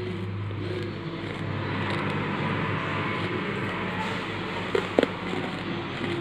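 A steady rushing noise that swells and eases off, with two short sharp crunches about five seconds in as a piece of red khadi chalk is bitten.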